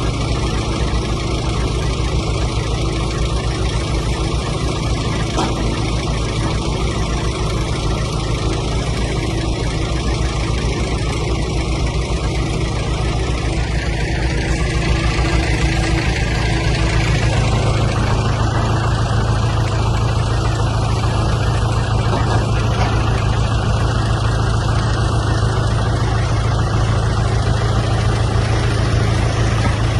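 Hydraulic excavator's diesel engine running steadily; about halfway through its note shifts and grows slightly louder, as the machine works harder.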